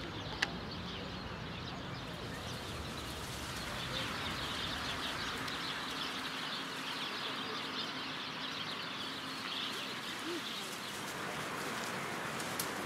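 A chorus of small birds chirping and twittering without a break, growing fuller about four seconds in. A single sharp click comes just after the start.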